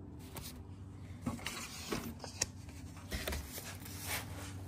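Faint rustling and light ticks of 8-inch floppy disks in paper sleeves being handled and shuffled, over a low steady hum.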